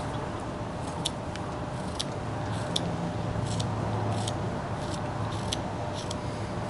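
Small whittling knife slicing shavings off a thin wooden stick, giving short, crisp snicks about every two-thirds of a second as the spear point is shaped like an arrowhead, over a steady low background hum.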